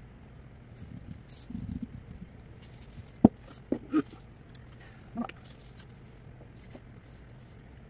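A few short clicks and knocks of small objects being handled on a work surface, the loudest and sharpest about three seconds in, after a brief rustle.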